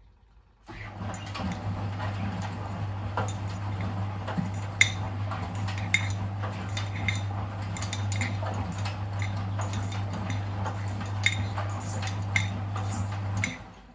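Miele WS 5405 front-loading washing machine during its wash: about a second in the drum starts turning with a steady low motor hum, while the tumbling load clinks and knocks against the drum. It stops just before the end, the turn-and-pause rhythm of the wash cycle.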